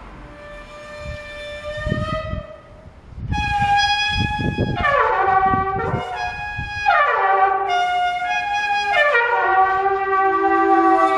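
Microtone-Duplex trumpet playing long held notes, several of them sliding down in pitch. It gets louder after about three seconds, with low gusty noise under the first notes.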